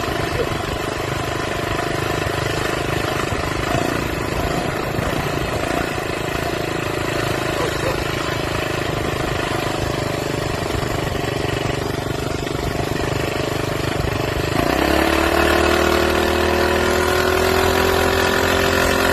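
Minibike's small engine running while being ridden. About 15 seconds in the engine note picks up and rises steadily in pitch as the bike accelerates.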